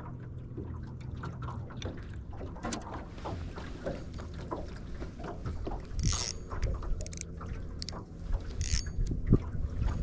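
Water slapping and lapping against an aluminium jon boat's hull, with wind on the microphone and many small irregular clicks; a low steady hum fades after the first couple of seconds. Two short hissing sounds come about six and nine seconds in.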